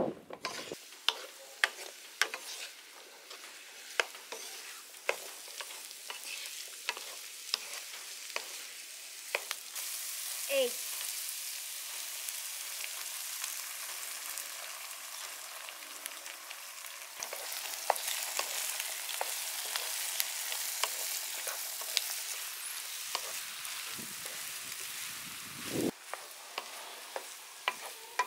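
Diced onion and bell pepper sizzling in oil in a non-stick frying pan, with a wooden spatula ticking and scraping against the pan as it stirs. The sizzle grows louder about ten seconds in as beaten egg goes into the hot pan, and the egg and vegetables keep frying while being stirred.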